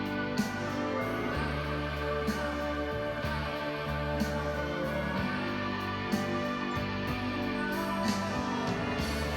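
Slow instrumental music with long held notes that change about once a second.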